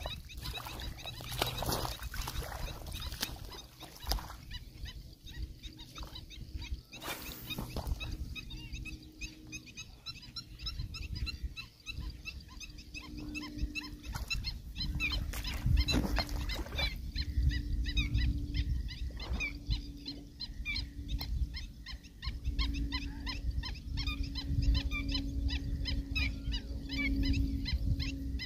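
Wind rumbling on the microphone, growing stronger partway through. Underneath it runs a dense chorus of short, rapid wildlife chirps, with a low steady hum that breaks off now and then.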